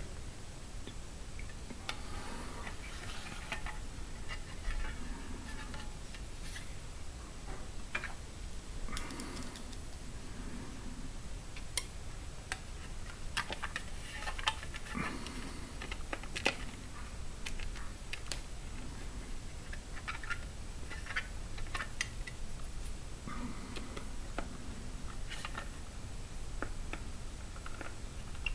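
Scattered light clicks, taps and brief scrapes of small parts being handled, irregular and spread out, over a low steady background rumble.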